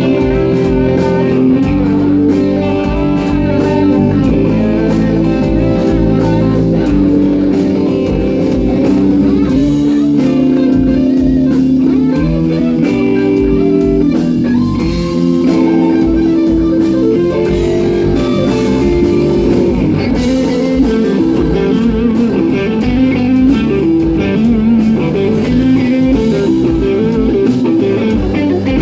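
Band playing an instrumental break without vocals, led by guitar over bass and drums.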